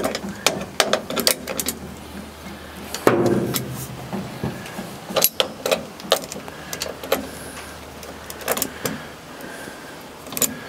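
Irregular clicks, clinks and knocks of metal tools and parts being handled, with a louder clatter about three seconds in.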